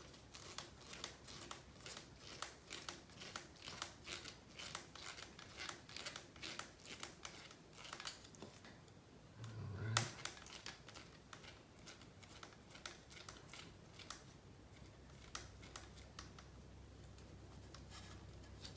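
Faint small clicks and ticks of a hand hex driver turning a metal ball stud out of the plastic front-end parts of a Team Associated B6.3 buggy, with the plastic parts being handled. The clicks come about three or four a second at first and thin out later, with one soft thump about ten seconds in.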